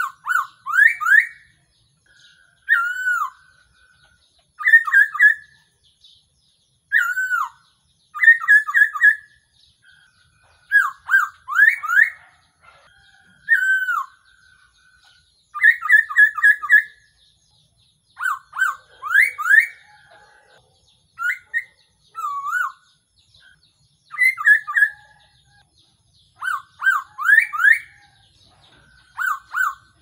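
Black-throated laughingthrush singing: loud, clear whistled phrases every second or two, mostly runs of three or four quick rising notes, mixed with single down-curving whistles.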